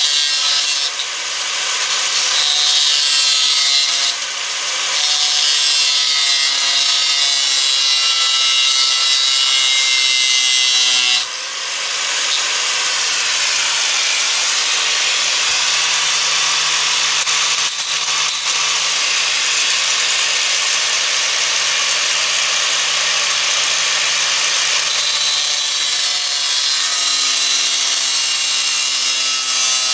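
Small electric hand grinder grinding down the steel head of a bolt: a loud hissing grind over the motor's whine, which drifts in pitch as the disc bears on the metal, easing off briefly about one, four and eleven seconds in.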